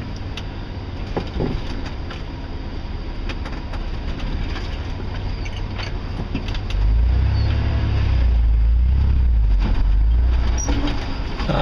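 A 4x4 truck's engine running while driving off-road, heard from inside the cab, with scattered knocks and rattles from the body. About seven seconds in, the low engine rumble gets much louder, as under heavier throttle.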